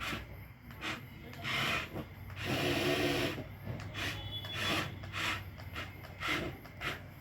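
RC excavator's tracks scraping and grinding over rough, rocky ground in short repeated bursts, with one longer, louder scrape about two and a half seconds in.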